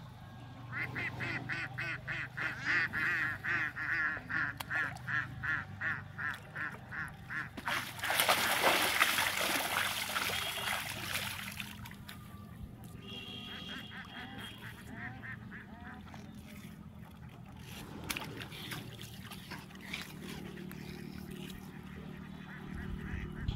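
Waterfowl calling in a fast run of harsh, evenly repeated calls, about four a second for several seconds, followed by a few seconds of loud rushing noise and then fainter scattered calls.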